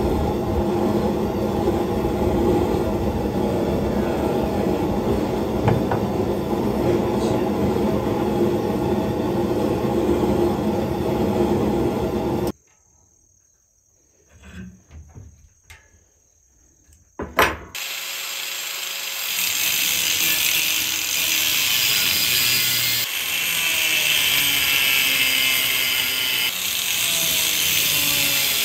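A steady rumbling drone that stops abruptly about twelve seconds in, then a few seconds of near quiet with small knocks and one sharp click. After that, an angle grinder's abrasive disc cuts into a steel railroad spike clamped in a vise, with a steady hissing grind for the rest of the time.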